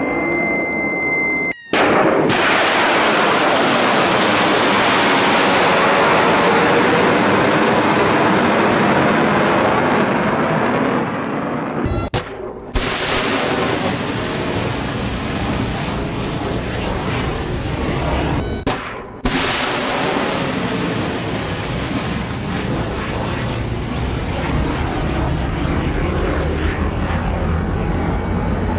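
Roar of ship-launched missiles, the rocket motors firing and climbing away from the vertical launch cells. Several launches are spliced together, so the roar breaks off abruptly and restarts about 2, 12 and 19 seconds in.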